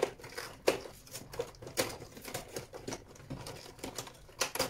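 Irregular clicks and taps of a cardboard advent calendar door being opened and the small product packaging inside being handled.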